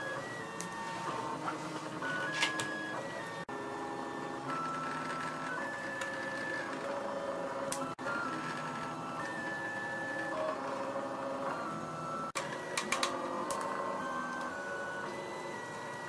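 3D printer running, its stepper motors whining at steady pitches that jump from one tone to another every second or so as the print head moves, with a few light clicks.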